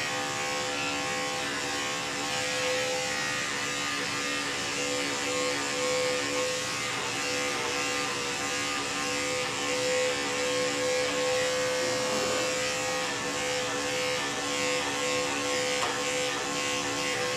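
Andis five-speed electric dog clipper running with a steady buzz as it is pushed through a curly coat, clipping the body hair.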